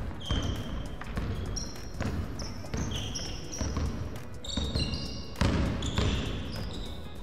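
Basketball dribbled on a hardwood gym floor, a bounce every half second to a second, with short high sneaker squeaks in between.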